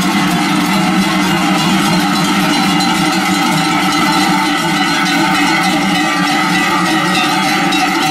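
Many large cowbells on a passing herd of cows clanging together continuously in a dense, steady, overlapping jangle of bell tones.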